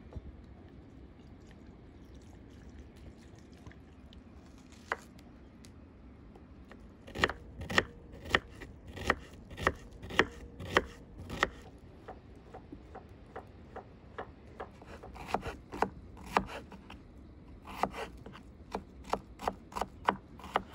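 Kitchen knife chopping an onion on a wooden cutting board: sharp, evenly spaced strikes, a little under two a second. They start about seven seconds in after a quiet stretch and come in several runs, softer in the middle.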